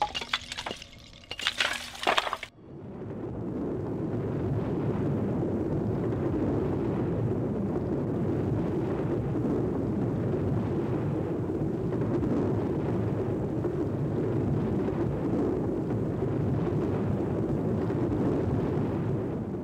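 Slate cracking and clattering for about two seconds, then the steady low rumble of a rockfall sliding down a scree slope, which cuts off just before the end.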